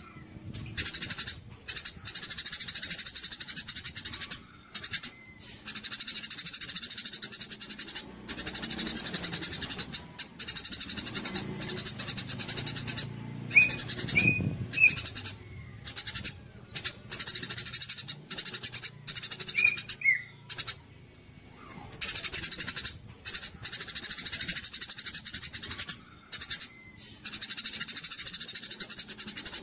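Songbird singing a rapid, high, buzzing trill in long phrases broken by short pauses, with a few short lower chirps in between. This is a masteran recording, used to teach song to competition birds.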